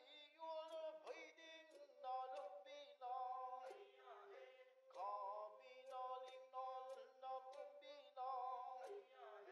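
Soft background music: a slow melody of plucked notes, about two a second.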